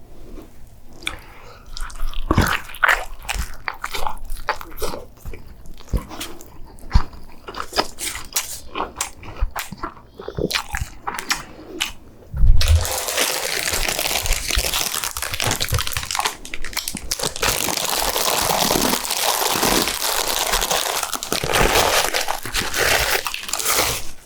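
Close-miked eating: biting and chewing food with many small crunches and clicks. About halfway there is a loud thump, then a long dense rustling noise that lasts until the end.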